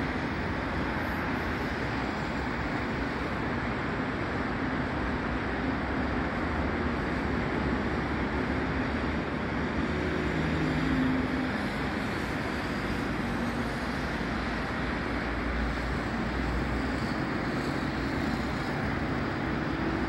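Steady urban road traffic on a busy avenue: a continuous wash of car, motorcycle and bus engines and tyres, swelling slightly about halfway through.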